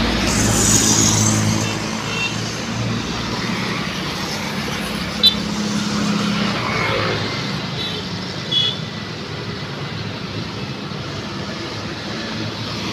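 Roadside traffic noise with vehicle engines running steadily. There is a single sharp tick about five seconds in and a brief higher blip a few seconds later.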